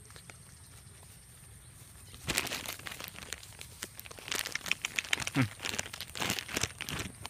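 Dry crinkling and rustling in short crackly bursts: a brief burst about two seconds in, then a denser run through the last three seconds.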